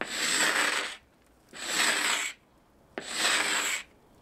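Bahco carbide hand scraper dragged across a fibreglass boat hull, scraping off old antifouling paint over Coppercoat. Three scraping strokes about a second and a half apart, each starting with a sharp click as the blade bites and carrying a thin high whine.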